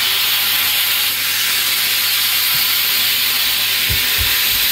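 Hetty vacuum cleaner's motor running steadily: a constant airy hiss over a low hum, with a few soft low knocks in the second half.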